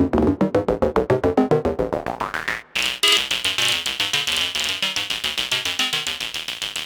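Dreadbox Dysmetria analog synthesizer playing a fast sequenced run of short notes, about eight a second, its filter opening so the notes grow brighter. After a brief gap the run resumes with a bright, resonant edge.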